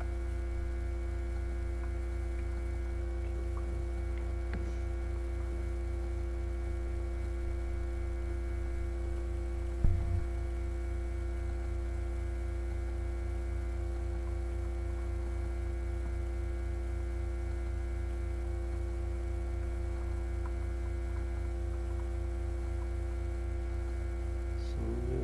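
Steady electrical mains hum with several steady overtones, picked up by a poorly working microphone. A single low thump about ten seconds in.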